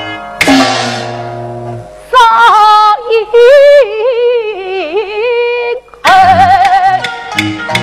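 Yue opera aria with traditional Chinese ensemble accompaniment. A sharp percussion crash comes about half a second in. Then a woman's voice holds a long, wavering melismatic phrase with vibrato, and the instruments take over again near the end with quick percussion strokes.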